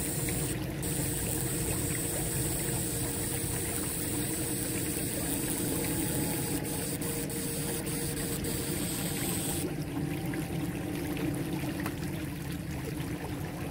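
Water trickling and flowing steadily among the stream rocks, with a faint low hum. A high hiss underneath cuts off suddenly about ten seconds in.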